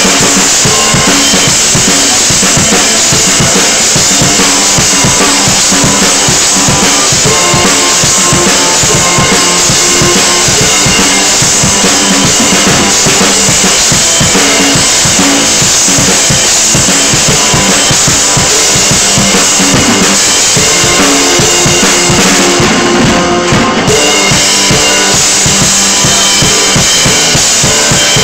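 Drum kit played loudly and without a break: snare, bass drum and cymbals in a fast, steady groove.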